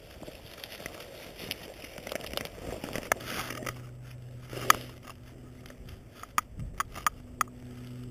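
Jacket fabric rustling and crackling against a chest-mounted camera as a person bends to tie a boot lace, with sharp clicks and knocks, the loudest a little past halfway and a quick run of them in the second half. A low steady hum sits underneath from about three seconds in.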